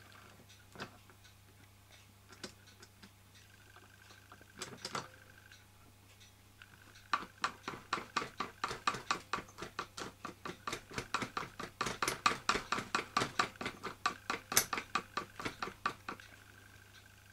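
Meccano gear train and crank of a model motor unit turning, giving a rapid run of regular mechanical clicks, about five a second, that starts about seven seconds in and stops shortly before the end, after a few scattered single clicks.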